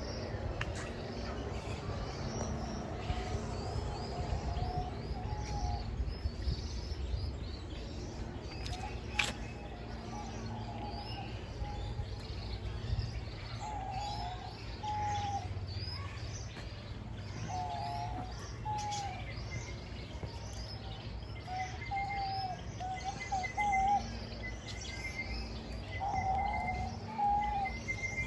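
Birds calling: short wavering low calls repeated every couple of seconds over scattered higher chirps, with a steady low rumble of background noise. A thin steady trill joins about two-thirds of the way through.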